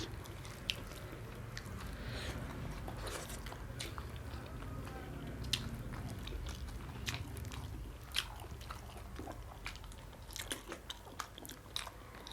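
A person chewing and biting food close to the microphone, with irregular small clicks of the mouth and teeth over a low steady background rumble.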